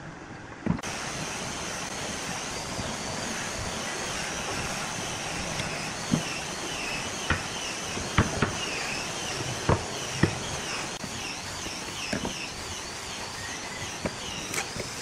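Wooden blocks knocking and clacking as they are handled and set down on a wooden tabletop, with clicks from steel pliers. The knocks come as single sharp strokes every second or so, over a steady hiss with a faint high warbling tone.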